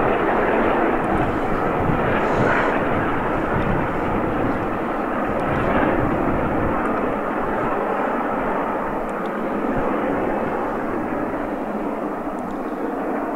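Three-cylinder LMS Jubilee class steam locomotive 5690 Leander working hard at a distance, its exhaust beats merged into a steady roar that fades slightly toward the end.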